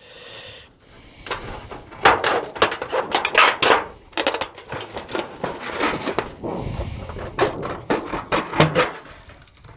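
Hand tin snips cutting across a strip of thin sheet-metal flashing: a run of quick, irregular crunching snips, one after another, starting about a second in.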